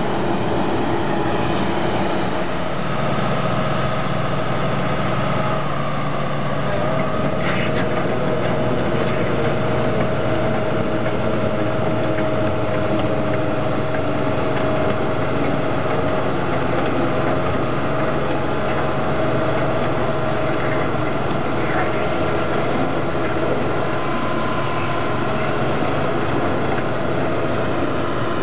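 Diesel engine of an amphibious excavator running steadily under load as its pontoon tracks drive it up out of the water onto the bank.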